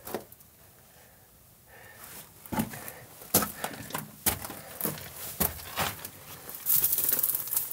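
Footsteps crunching on loose gravel and rock on a mine tunnel floor, a handful of separate steps after a quiet start, ending in a longer scraping crunch.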